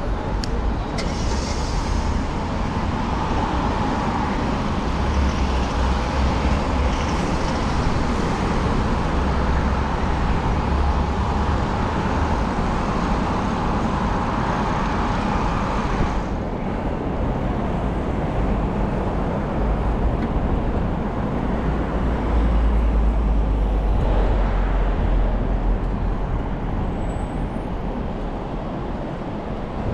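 City street traffic: cars and other vehicles running and passing close by, heard from a moving bicycle. A steady higher-pitched noise cuts off suddenly about halfway through, and a deeper rumble swells a little later.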